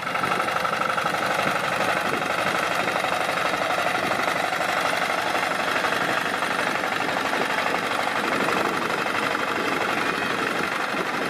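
Small motor and gear train of a home-made toy tractor running, a steady rapid buzzing whir as it drives along pulling its trailer.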